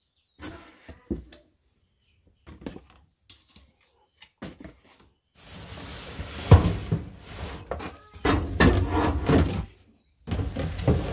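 Plastic bottles knocking as they are set into a cardboard box, then the loaded box rubbing across the floor and bumping into the cupboard with a loud knock.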